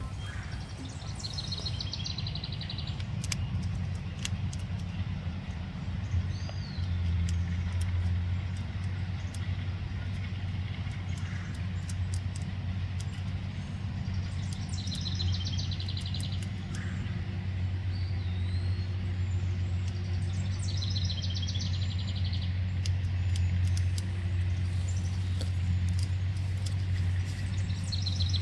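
Steady low engine drone, like a vehicle running, that grows stronger about a quarter of the way in. Over it, birds chirp and give short buzzy trills every few seconds.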